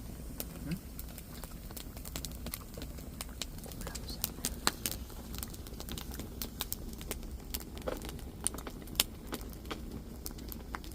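Campfire wood crackling and popping, with irregular sharp snaps over a low steady rumble.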